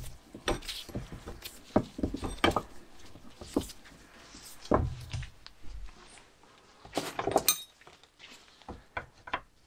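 Irregular metallic clinks and knocks from a steel suspension arm being handled and shifted in a bench vise, with a busier cluster of clinks about seven seconds in.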